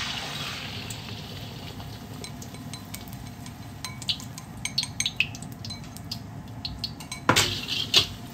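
Beaten egg hitting hot oil in a wok: a burst of sizzling that fades over a second or so, then scattered crackling and popping as the egg fries in the oil. Near the end come two louder metal scrapes against the wok.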